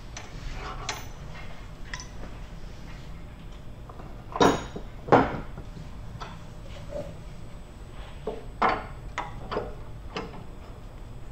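Wood lathe running with a steady low hum while a tool trims the edge of a spun aluminum bowl, giving irregular metallic scrapes and clinks. The two loudest come close together about halfway through, and a few smaller ones follow near the end.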